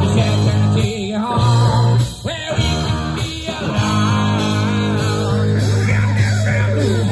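Live rock band playing: electric guitar, bass and drum kit, loud and continuous.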